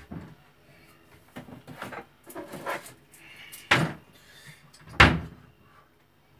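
Kitchen wall-cupboard door opened and shut, with knocks and clatter of things being handled inside it. The two sharpest knocks come near the end, the louder one about five seconds in as the door bangs shut.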